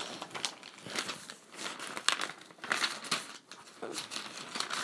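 Lined notebook paper rustling and crinkling as the pages are handled and turned, a run of irregular soft crackles.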